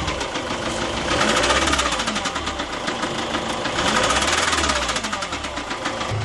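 2004 Ford Transit TDCi common-rail diesel engine running with a rapid, heavy knock, the sign of a worn big end (connecting rod) bearing. The engine note swells and eases twice as the revs rise and fall.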